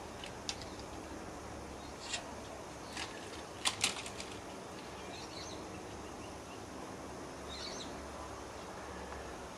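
Koala's claws scratching and clicking on tree bark as it climbs: a few short, sharp scratches, the loudest a quick cluster about four seconds in, over steady outdoor background noise. A couple of faint bird chirps in the second half.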